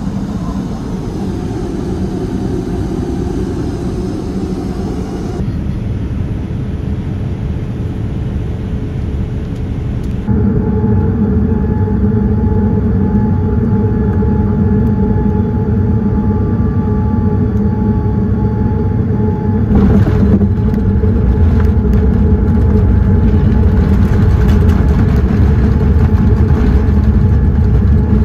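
Steady roar of engine and airflow noise inside a Boeing 787-9's passenger cabin, heard in several cut-together segments. The rumble grows louder and deeper about twenty seconds in.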